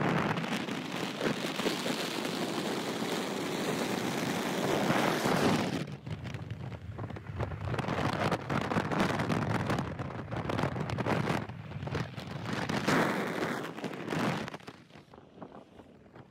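Wind rushing and buffeting against a phone microphone with road noise from a moving car. A steady loud rush for about six seconds, then gusty and uneven, dying down near the end.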